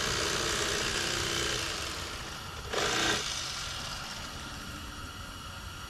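Electric fillet knife running as it cuts bluegill fillets on a cutting board: a steady buzz that surges briefly about three seconds in, then carries on more quietly.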